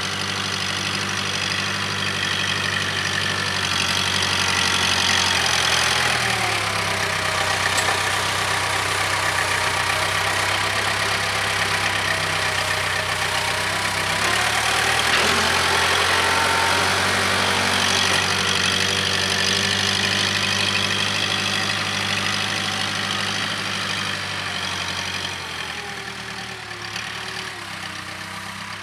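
Case 580K backhoe's diesel engine running as the machine works, dipping in pitch briefly twice and easing back to a quieter, lower run near the end.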